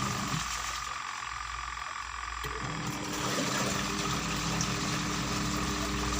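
Washing machine's wash motor humming steadily as it turns the tub, stopping about half a second in and starting up again about two and a half seconds in.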